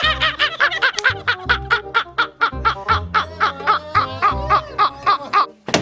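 Men laughing hard, a long run of rapid high-pitched laughs about four or five a second, over background music.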